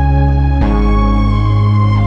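Background music: sustained synth-keyboard chords, changing chord about half a second in.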